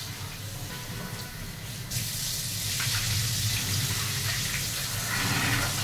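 Tap water running and splashing into a steel bowl of raw chicken pieces as they are rinsed by hand. The rush of water grows louder about two seconds in.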